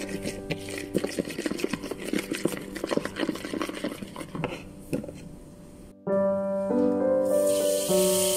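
A utensil clicking and scraping against a bowl while stirring an oily seasoning mix, many quick irregular clicks that fade out about five seconds in. After a sudden cut, background piano music plays, and near the end a tap runs water into a metal strainer with a steady hiss.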